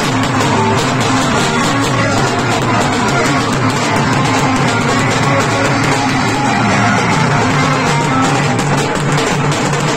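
Loud recorded music with a steady fast beat.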